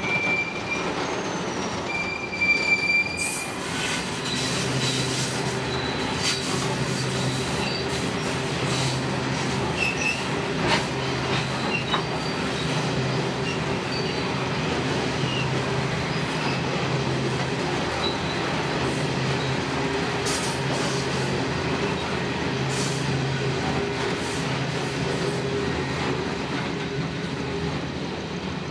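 A train rolling past on the line, with a steady rumble of wheels on rail. There are brief high-pitched wheel squeals in the first three seconds, and a low steady drone joins about four seconds in.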